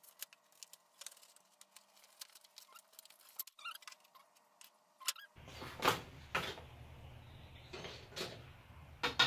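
Unpacking sounds: faint scratching, rustling and small clicks of cardboard and plastic packaging being handled as parts are pulled from the box. The handling gets louder about halfway through, with a few sharper rustles and knocks.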